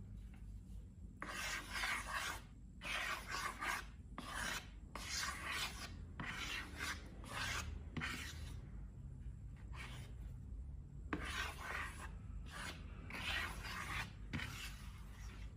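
Repeated rasping, rubbing strokes, about a dozen, each half a second to a second long, in irregular runs with short pauses, starting about a second in.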